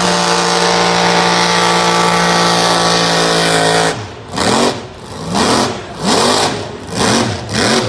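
Lifted pickup mud truck's engine held at high revs while plowing through a mud pit, then revving in about five rising-and-falling surges over the last four seconds.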